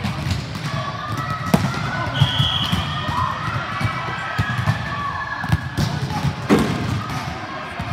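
Basketball game in a gym: the ball bouncing and thudding on the court amid footfalls, with players' voices in the background and a brief high-pitched squeal about two seconds in.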